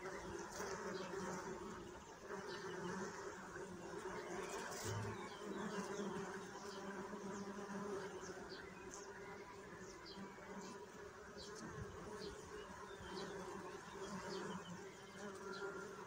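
Bees buzzing around flowering basil: a steady hum that swells and eases a little, with scattered faint high ticks over it.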